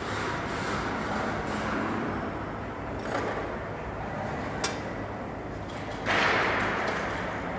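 Steady factory-floor background noise from the assembly hall, with a single sharp click about halfway and a sudden louder rush of noise about six seconds in that fades away over a second or two.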